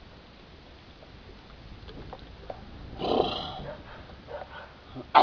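A man's short, loud, throaty gasp about three seconds in, his reaction to a shot of strong liquor, followed by a few fainter breathy noises.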